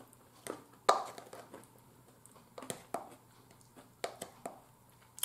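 Scattered soft clicks and taps of a metal fork picking chopped salad out of a plastic container, mixed with quiet mouth sounds of eating.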